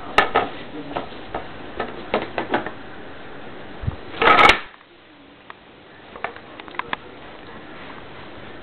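Handling noise: a run of light clicks and knocks, a louder brief rustling burst about four seconds in, then a few faint ticks.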